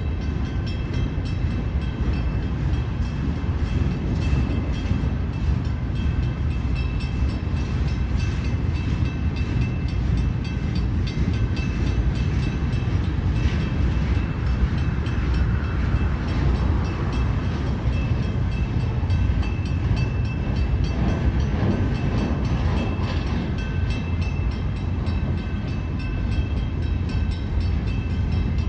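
Train cars rolling past at steady speed: a continuous low rumble with thin, steady high-pitched tones over it and faint clicks.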